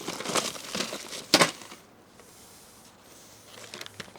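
Rummaging by hand through a tote of wires, cords and appliance parts: rustling and crinkling with small clicks, and a sharp knock about one and a half seconds in, then quieter handling.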